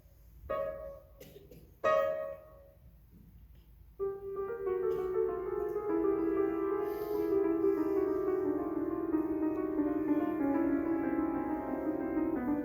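Piano playing: a few separate, abrupt notes with short pauses between them, then from about four seconds in a steady, unbroken run of notes played with alternating thumbs, gradually falling in pitch.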